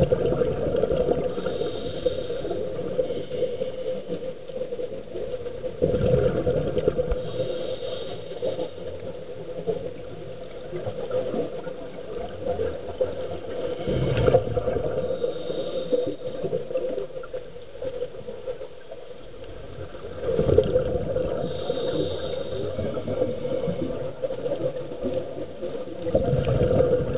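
Scuba breathing through a regulator underwater: about every six to seven seconds a loud rush of exhaled bubbles, each followed by a short hiss of inhalation, over a steady hum.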